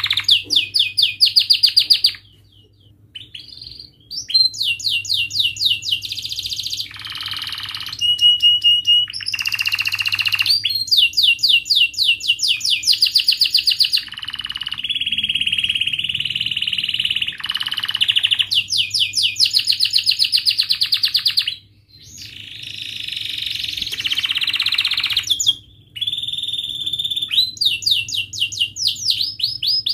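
Domestic canary singing in long phrases of rapid repeated chirps and rolling trills, pausing briefly a few times.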